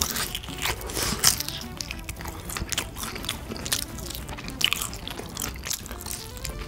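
Close-up biting and chewing of a honey-glazed fried chicken wing, gnawed off the bone, in many short irregular crunches and smacks. Background music plays underneath.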